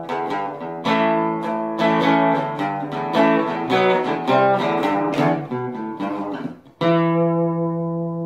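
Outro music: acoustic guitar picking a run of notes, then a short break and one final chord that rings out and slowly fades.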